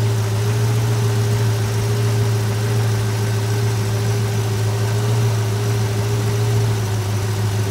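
1966 Ford Mustang's 289 V8 idling steadily. Near the end one spark plug wire is lifted off with insulated pliers, so the engine drops to seven cylinders and its idle speed changes.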